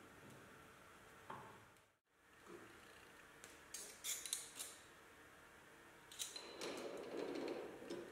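Light metal-on-metal clicks and scrapes of small steel parts and a steel caliper being handled, in a cluster about four seconds in and again near the end.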